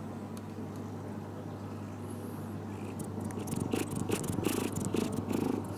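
Cat purring close to the microphone. From about three seconds in, irregular rustling and soft bumps as its fur and whiskers brush against the camera.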